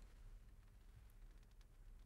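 Near silence: faint room tone with a low hum and a few very soft ticks.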